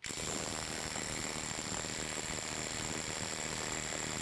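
DeWalt DCF850 brushless impact driver, converted to a 3/8-inch square-drive anvil, hammering continuously on a bolt of a torque-testing dyno. It kicks in at once and keeps a steady rapid hammering with a thin high whine over it.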